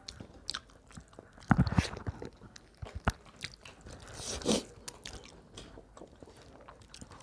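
Close-miked chewing and crunching of food by someone eating a meal, with sharp crackling bites. Louder crunches come about a second and a half in and again at about four and a half seconds.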